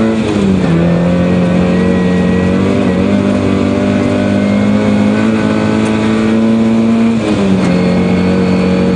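Rally car's engine heard from inside the cabin, pulling steadily at speed on a snowy stage. The engine note drops about half a second in and again at about seven seconds, and climbs slowly in between.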